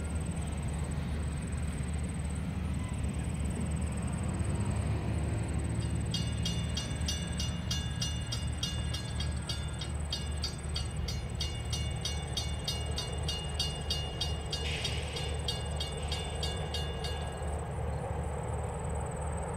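Low steady rumble of a train still out of sight, coming closer along the line. From about six seconds in until near the end there is a rapid high bell-like ringing, about two strokes a second.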